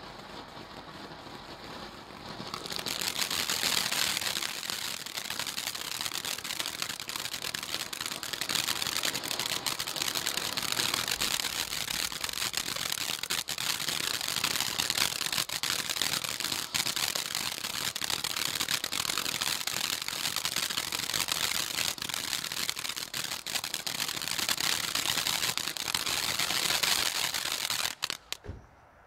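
Röder Sprotzel Box firework fountain burning with a steady hiss and dense crackling. It grows louder about two and a half seconds in and cuts off suddenly near the end as it burns out.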